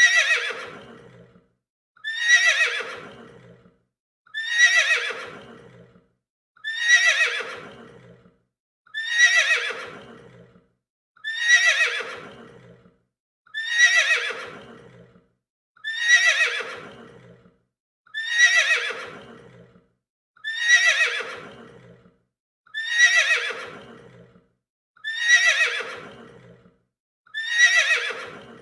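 Horse neighing: the same whinny repeated over and over, one about every two seconds. Each starts loud and high and slides down in pitch as it fades.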